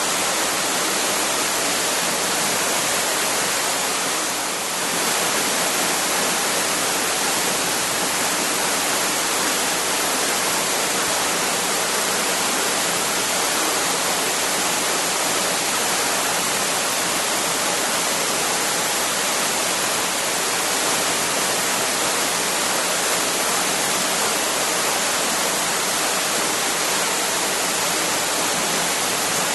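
Waterfall: the steady, even rush of falling water, with a brief slight dip about four seconds in.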